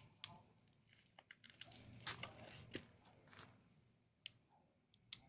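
Near silence with a few faint, scattered clicks and short rustles.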